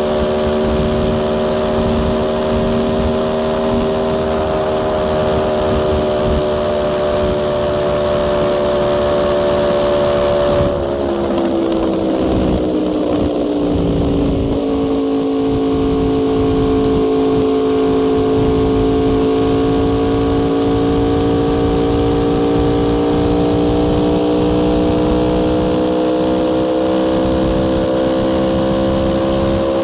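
Aprilia Tuono V4 R's V4 engine running at steady revs at highway speed over a steady rush of noise. About a third of the way in the throttle is rolled off and the engine note glides down over a few seconds, then climbs slowly again as the bike picks up speed.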